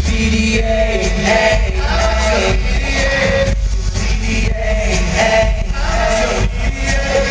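Male vocal group singing in close harmony over amplified backing music.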